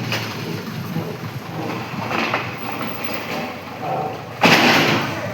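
Heavy machinery, a Hydra crane and an excavator, running with steady engine noise, and a short loud burst of noise about four and a half seconds in.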